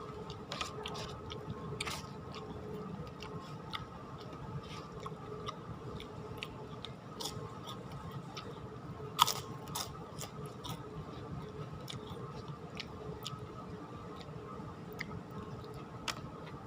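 Close-up mukbang chewing and biting of ketoprak, with crunching and many small sharp clicks, one much louder about nine seconds in. A steady faint hum runs underneath.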